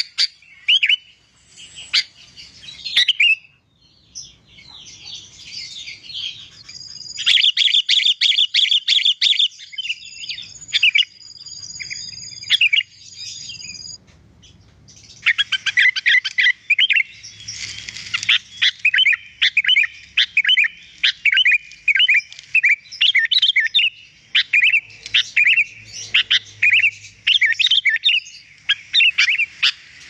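Sooty-headed bulbul singing busily: varied chirps and whistles, a dense rattling run with a thin high whistle over it from about seven to fourteen seconds in, then a long stretch of quick, repeated chirping phrases.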